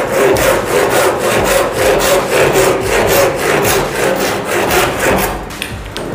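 Hand saw with freshly set teeth cutting through a wooden batten in quick, even back-and-forth strokes: a test cut after setting the teeth.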